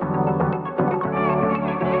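Background music with a steady beat and electronic instruments.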